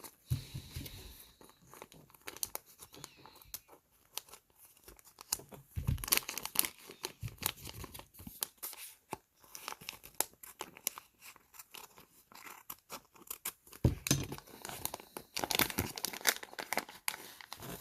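Small plastic packaging being torn open and crinkled by hand, with scattered clicks and a few soft bumps of handling.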